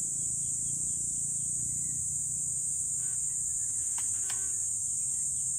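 Insect chorus from roadside trees and brush, a steady high-pitched drone that does not let up.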